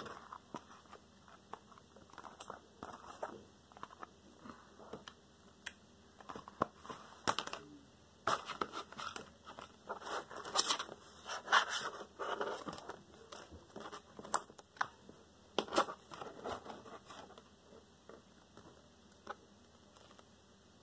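Hands kneading and stretching sticky slime: irregular crackles, small pops and clicks, thickest through the middle and thinning out near the end.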